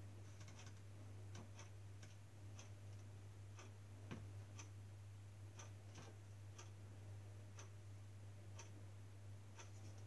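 A clock ticking faintly once a second, with a few softer irregular clicks in between, over a steady low hum.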